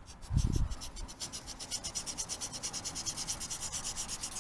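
Hand sanding of a small soft balsa-wood boat hull block, angling its end on a diagonal. Quick back-and-forth rasping strokes, about six a second, steady after the first second, with a brief low bump about half a second in.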